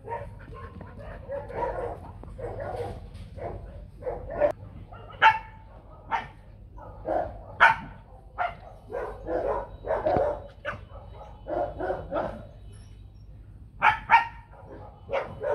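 Dogs barking repeatedly in short, irregular barks.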